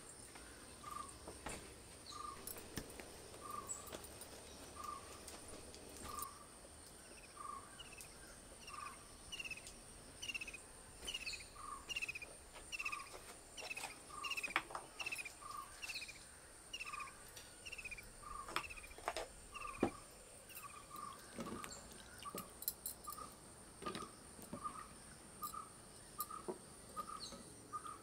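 Steady high insect drone with birds calling: one repeats a short single note about once a second, quickening near the end, while another gives a run of short chirps through the middle. A few sharp knocks, the loudest about halfway through.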